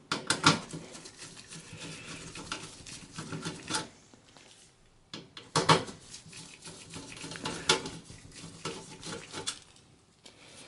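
Screwdriver backing out motherboard screws inside a steel computer case: irregular metallic clicks, clinks and scrapes, with sharper clinks about half a second in, near four seconds, near six seconds and near eight seconds.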